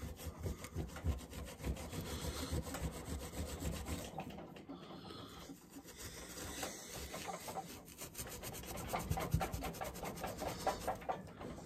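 A green Scotch-Brite abrasive pad scrubbing the aluminum face of a chainsaw carburetor in rapid back-and-forth strokes, scouring off stuck gasket material. The scratchy rubbing grows a little louder in the last few seconds.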